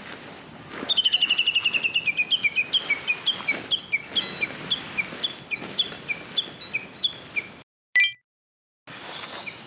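A bird calling: a long series of short chirps, quick at first, then slowing and dropping in pitch. Near the end the sound cuts out, apart from a brief tone.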